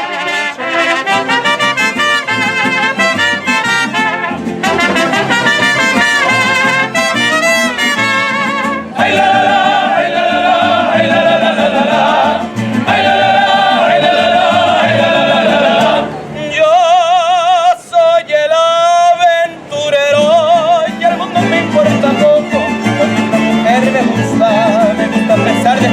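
Music with brass instruments and a singing voice with strong wavering vibrato, briefly dropping away about 16 seconds in.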